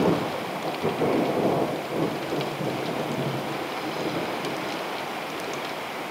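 Steady rain falling, with a roll of thunder that swells right at the start, is loudest over the first couple of seconds and rumbles away over the next few.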